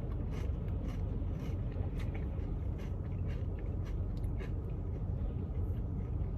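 Faint eating sounds, chewing with small scattered clicks, over a steady low rumble.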